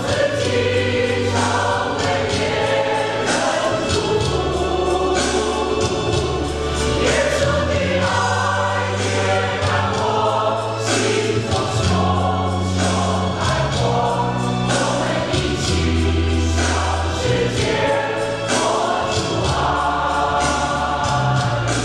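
Mixed choir of men and women singing a Chinese hymn in harmony, over instrumental accompaniment with long held bass notes.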